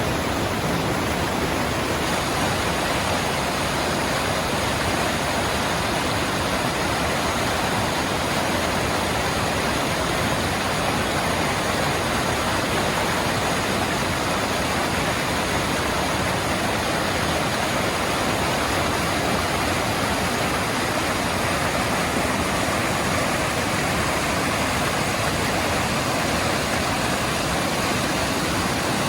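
Mountain stream rushing over rapids: a loud, steady, unbroken wash of water noise.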